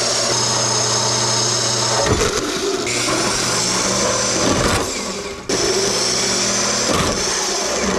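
Handheld electric power tool running at high speed with a steady motor whine. Its sound changes for a few seconds in the middle as it bears on the work, and jumps abruptly back to full level about five and a half seconds in.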